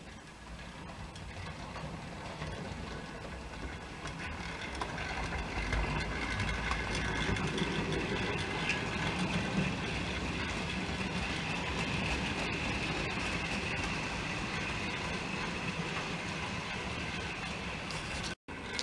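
Model railway train running along the layout's track: a steady rumble and rattle of wheels on rail with a faint high whine, growing louder over the first few seconds as it comes near, then holding steady.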